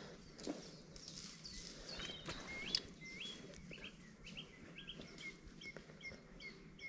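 Faint birdsong outdoors: a songbird singing a run of short, quick high notes, some sweeping down and some hooking upward, over a light background hiss.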